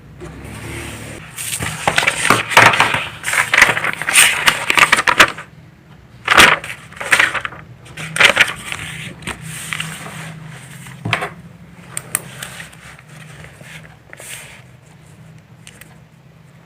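Handling noises: irregular bursts of rustling and scraping with sharp clicks, busiest in the first five seconds and thinning out toward the end, over a steady low hum.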